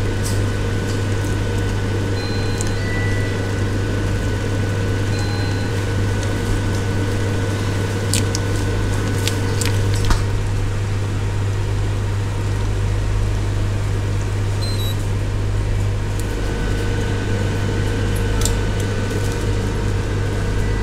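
Interchamp Smart Cooker induction ramen machine running with a steady electrical hum while instant noodles cook in a cardboard pot on its induction plate. A few light clicks come about eight to ten seconds in.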